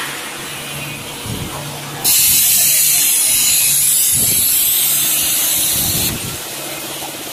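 Frying-line machinery running with a low hum, and a loud steady hiss that switches on abruptly about two seconds in and cuts off about four seconds later.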